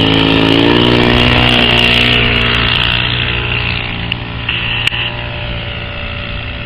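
OS FS-120 four-stroke glow engine of an RC P-47D Thunderbolt model, turning a four-blade propeller and running at high throttle. Its pitch rises slightly in the first second, then holds steady while the sound slowly fades from about two seconds in.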